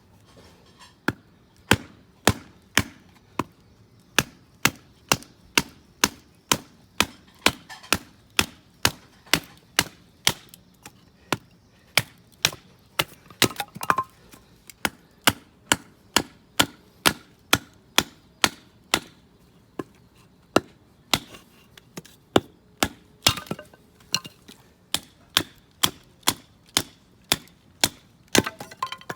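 Firewood being split by batoning: a wooden baton knocking on the spine of a knife driven into a log, about two sharp knocks a second.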